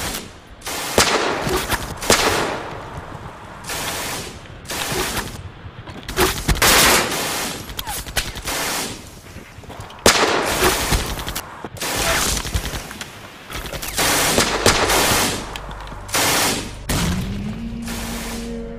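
Heavy gunfire in a battle: rifle shots and rapid bursts of fire, one after another. A steady low musical drone comes in near the end.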